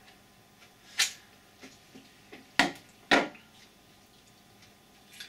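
Hard 3D-printed plastic parts of an airsoft gun replica clicking and knocking against each other as they are handled: a few light clicks, then two sharper knocks about two and a half and three seconds in.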